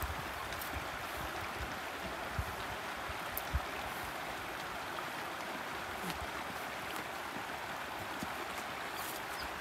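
Shallow creek water running over rocks: a steady rush, with a few faint low thumps.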